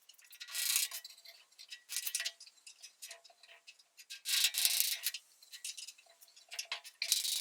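Short bursts of metallic clicking and scraping from hand tools working on the jointer's drive pulley and set screws, four bursts in all.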